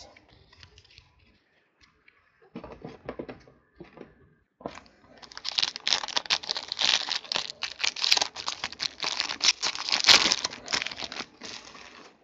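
Plastic wrapping on a pack of trading cards being crinkled and torn open: a few soft handling sounds, then a dense crackle from about five seconds in that stops shortly before the end.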